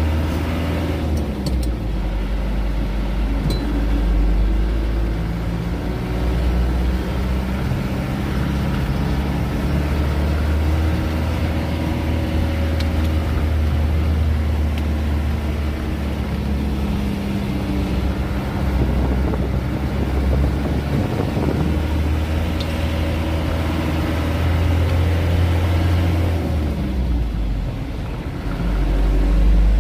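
Truck engine heard from inside the cab as the truck is driven. The engine note rises and falls in pitch several times.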